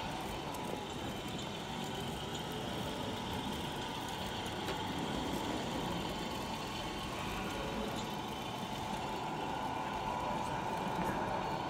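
Radio-controlled scale model trucks running, a steady engine-like drone with a constant mid-pitched hum.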